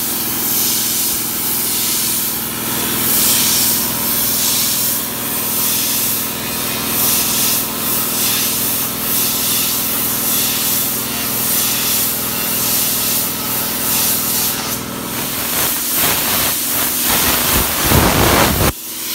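Compressed air jetting continuously from a handheld air blow gun: a loud, steady hiss. Near the end the blast turns louder and rougher, then cuts off suddenly.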